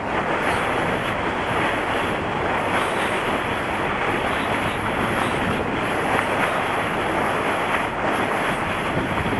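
Steady rush of wind buffeting the microphone, mixed with sea water washing past the hull of a moving passenger ferry.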